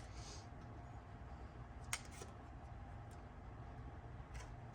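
Faint handling of Pokémon trading cards, with two or three soft clicks over a low steady hum.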